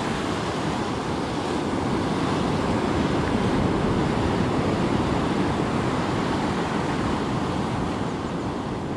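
Ocean surf breaking and washing steadily onto a sandy beach, mixed with wind.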